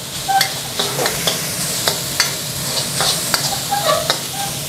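Minced pork with pounded chili and garlic sizzling in a hot wok while a metal spatula stirs and tosses it, scraping and clicking against the pan about two or three times a second. The garlic and chili, fried until fragrant and turning golden, are being mixed into the cooked pork.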